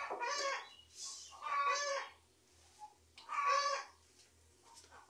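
Chickens calling: three separate squawking calls, each about half a second long, spaced roughly every second and a half to two seconds.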